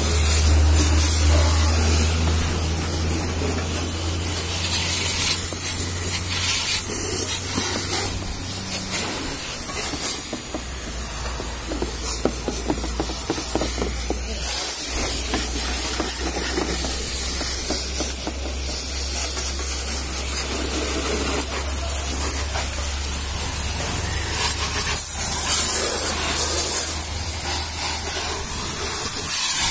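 Pressure washer jet spraying water onto a car's bodywork and wheel, a steady loud hiss of spray, with a low hum underneath that drops lower about ten seconds in.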